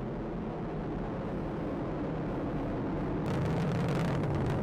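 Atlas V rocket carrying the Starliner spacecraft in ascent: a steady low rumble of rocket engine noise. About three seconds in it grows louder and takes on a dense crackle.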